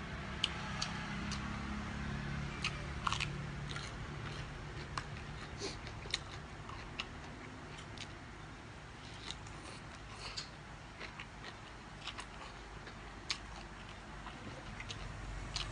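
Close-up eating sounds of a person chewing mouthfuls of khanom jeen rice-noodle salad, with irregular sharp little crunches and clicks from the crunchy bits.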